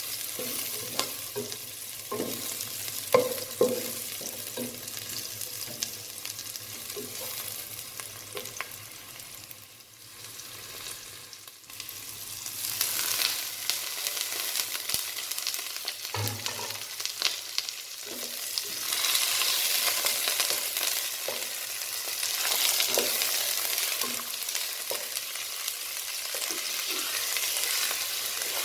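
Food frying and sizzling in hot oil in a cooking pot while it is stirred, a spoon knocking against the pot now and then. The sizzle dips about ten seconds in, then comes back louder.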